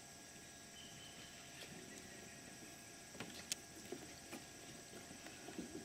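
Faint outdoor ambience: a steady high-pitched drone, with a few sharp clicks and soft knocks scattered through the second half.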